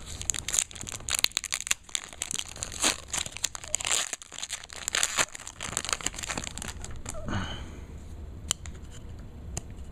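1997 SkyBox Impact football trading cards being handled, with dense crinkling and tearing as cards that have stuck together in storage are pulled apart. The rustling and snapping is busiest for about the first seven seconds, then thins to a few faint clicks.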